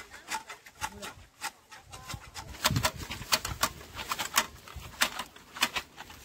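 Tea-harvesting shears snipping through tea bush shoots: quick, irregular crisp clicks, several a second, with a short low sound about three seconds in.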